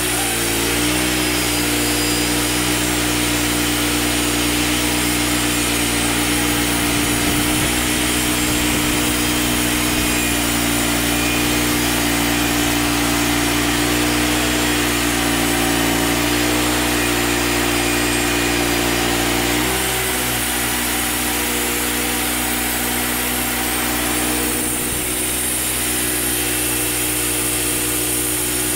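Wood-Mizer LT35 portable band sawmill running steadily, its engine driving the band blade through a pine log as the saw head travels along it. About 20 seconds in the engine note shifts, and a few seconds later some of the high cutting hiss fades.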